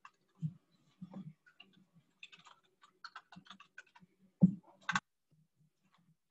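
Computer keyboard and mouse: a few clicks, then a quick run of keystrokes typing a short word, then two louder knocks about four and a half and five seconds in.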